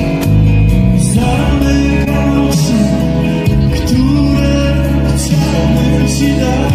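Live pop-rock band playing loud amplified music with a sung vocal line, heard from the audience.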